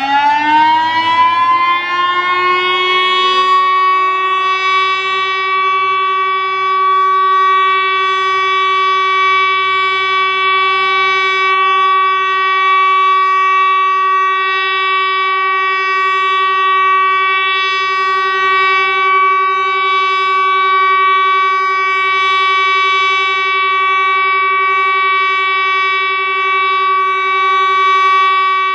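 Tesla UEAJ electronic civil-defence siren sounding the regular test signal: its tone glides up in pitch over the first few seconds, then holds one steady pitch rich in overtones.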